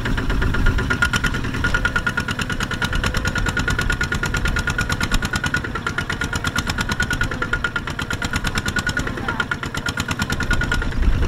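Kubota walking tractor's single-cylinder diesel engine running steadily under load as it drives the tractor through thick mud: a fast, even chugging with a steady high whine over it that stops shortly before the end.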